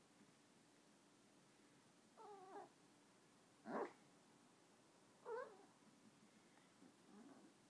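Chihuahua vocalizing in a few brief pitched calls that waver and fall in pitch, spaced a second or two apart; the loudest and shortest comes just before the middle.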